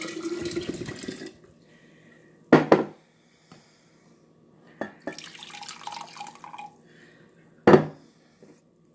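Sugar-water hummingbird nectar poured from a glass measuring cup into a glass mason jar in two short pours. A glass thing knocks sharply on the countertop twice, once between the pours and once near the end.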